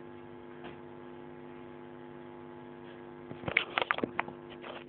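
Steady electrical mains hum. From about three and a half seconds in it is broken by a scatter of sharp, irregular crackles and clicks.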